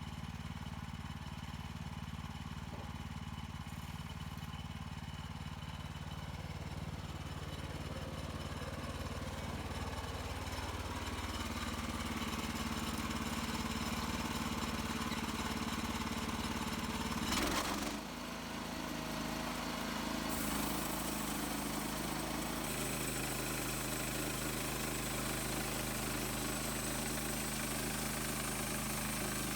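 HM130 Max portable bandsaw sawmill's gasoline engine running steadily, its pitch shifting a few times as the load changes, with one sharp knock about 17 seconds in.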